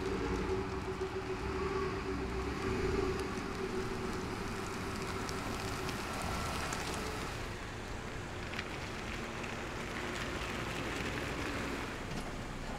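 A car driving along a residential street: engine hum with tyre noise, a steady sound that eases a little after the halfway point.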